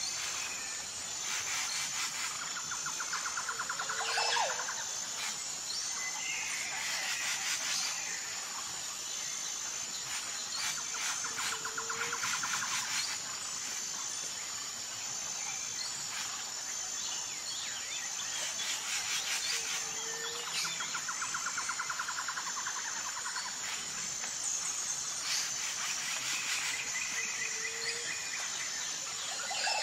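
Outdoor nature ambience: birds calling and trilling over a steady, high, pulsing insect chirr. The same sequence of calls comes round about every eight seconds, as in a looped ambience track.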